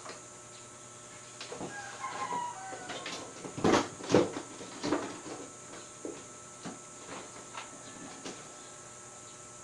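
A chicken clucking a few short calls, followed by a run of knocks and clatter. The two loudest knocks come close together about four seconds in, thinning to occasional clicks after.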